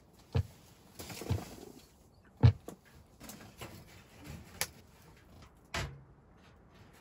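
A table knife scraping Nutella out of its jar and spreading it on crepes, with five sharp knocks as the knife and jar are tapped and set down, the loudest about halfway through.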